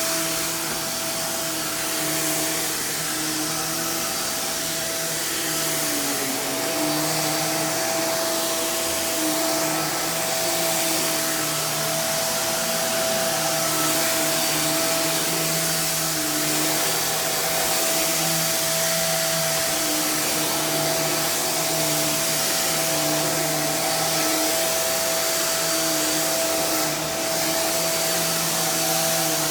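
Hoover React Professional Pet Plus UH73220 upright vacuum running steadily, with a high motor whine over airflow hiss. Its brush roll is spinning constantly because the floor-sense system is bypassed. The lower hum wavers slightly as the vacuum is pushed.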